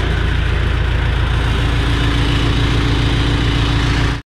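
John Deere 455G crawler loader's diesel engine running steadily, with a steady whine joining in about a second and a half in. The sound cuts off suddenly near the end.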